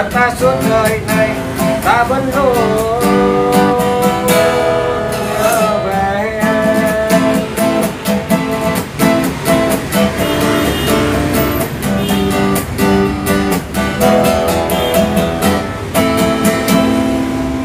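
Enya X4 Pro carbon-fibre acoustic guitar strummed and picked unplugged, a steady accompaniment pattern with ringing chords. A man's voice sings a few phrases over it.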